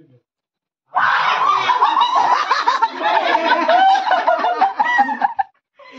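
Several people laughing and giggling together, overlapping, starting about a second in and breaking off shortly before the end.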